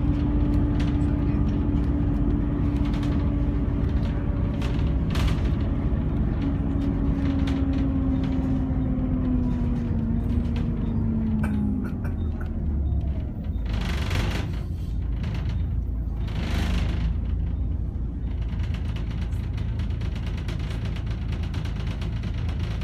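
Alexander ALX400 double-decker bus heard from the upper deck: a low drivetrain rumble with a whine that slowly falls in pitch over the first half. Two short hisses of air come about two and a half seconds apart midway through, then the rumble runs on steadily.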